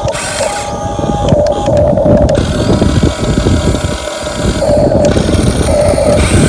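Small electric motors and gearboxes of radio-controlled model construction vehicles whirring, with a buzzing whine that comes and goes over dense crackling noise.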